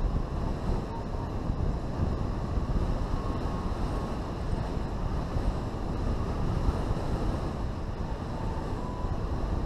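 Steady rush of wind over the microphone of a camera mounted on a hang glider in flight. The sound is a low, gusty buffeting.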